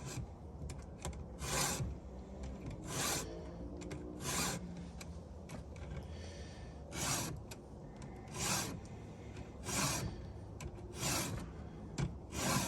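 Stihl 2-in-1 chainsaw file guide being pushed across the saw chain's cutters, a rasping file stroke about every one and a half seconds, with a short pause partway through.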